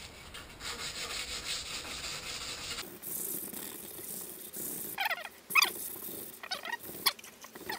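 Hand-sanding a painted cabinet door with a small abrasive pad: quick back-and-forth rubbing strokes that scuff the old finish so the primer will stick. In the second half the strokes come as short, high squeaks.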